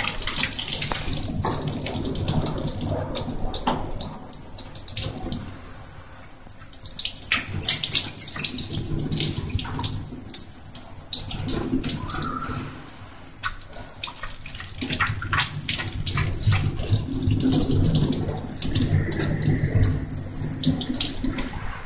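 Water running from a gooseneck tap into a stainless-steel scrub sink, splashing over hands and forearms as they are rinsed of scrub soap. The splashing rises and falls as the arms move under the stream.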